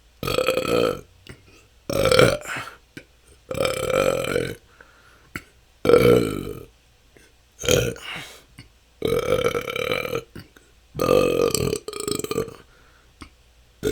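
A person belching naturally over and over: about eight loud, voiced burps in a row, each lasting half a second to a second, with short pauses between them.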